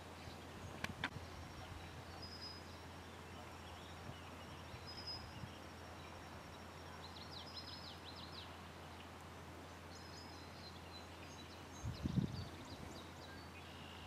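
Small songbirds chirping and trilling at a distance: short high notes, a quick run of rising notes about seven seconds in, and a longer trill from about ten seconds on. Under them runs a steady low hum, with a sharp click about a second in and a cluster of low thumps near twelve seconds, which is the loudest sound.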